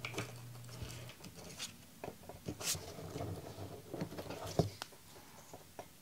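Scattered light clicks and taps of a finned heatsink and an M.2-to-PCIe adapter card being handled on a cutting mat while the card is flipped over for its screws to go in, with one sharper click about halfway through.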